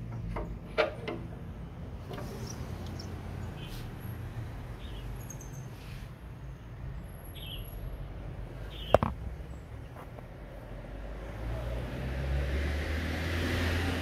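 Steady low rumble of traffic with a few faint high chirps. Two sharp clicks, about a second in and about nine seconds in, stand out as the loudest sounds. Near the end a vehicle swells louder.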